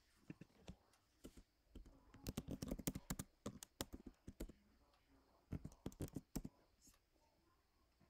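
Typing on a computer keyboard: a few scattered keystrokes, then a quick run of clicks about two seconds in lasting around two and a half seconds, and a shorter burst a little past the middle.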